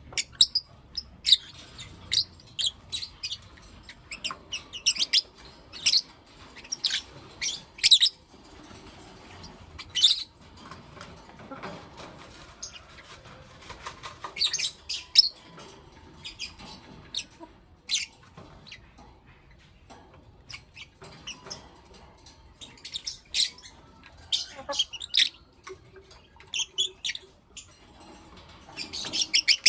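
Pet peach-faced lovebirds (blue opaline and lutino opaline) chirping: many short, sharp, high-pitched chirps in irregular clusters, with a brief quieter lull about two-thirds of the way through.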